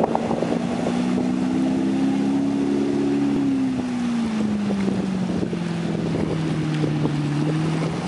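1998 Sanger V210 ski boat's engine running at speed, a steady note that falls in pitch about four seconds in and then holds lower.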